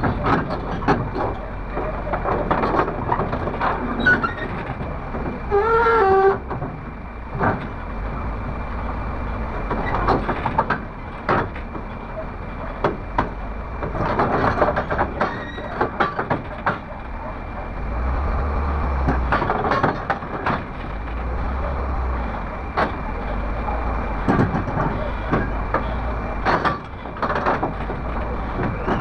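Komatsu PC300 hydraulic excavator's diesel engine running with a steady low rumble as the machine slews its upper structure round, with scattered knocks and clanks and a short wavering tone about six seconds in.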